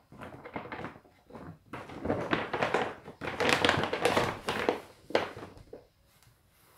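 Paper gift bag rustling and crinkling as it is handled and something is put inside, in irregular bursts that are loudest in the middle, with a sharp knock a little after five seconds in.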